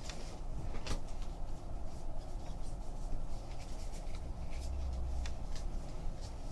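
Trading card packs being opened and the cards handled and slid through by hand: a string of short rustles, scratches and ticks over a steady low hum.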